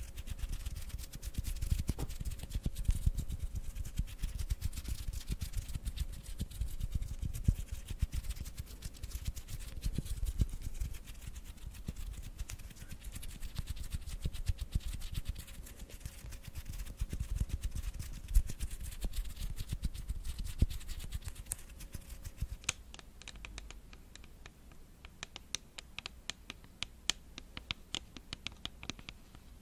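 Hands rubbing and brushing against each other close to a sensitive microphone: a dense, dry rustling with soft thumps. About three quarters of the way through it changes to crisp, quick taps of long acrylic nails on a hard cylindrical object.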